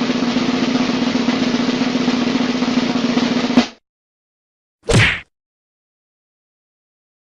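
A snare drum roll lasting about four seconds and stopping abruptly on an accent, followed a second later by one short drum hit.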